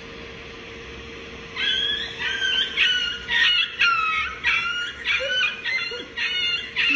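A bird calling over and over in harsh squawks, about two calls a second, starting about a second and a half in, over a faint steady hum.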